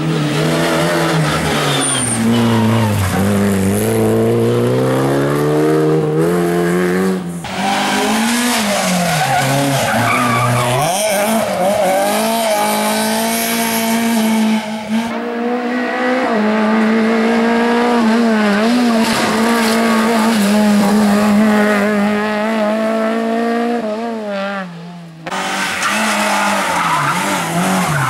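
Rally cars driven flat out on a special stage, engines revving hard with pitch climbing and dropping through gear changes and lifts, with tyre skidding. The sound breaks off abruptly three times as one car gives way to the next.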